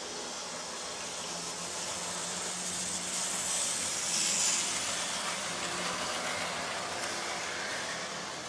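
Electric model train running smoothly along the layout's track with a steady hum from its motor and wheels. It grows louder as it passes close by about four seconds in, then fades.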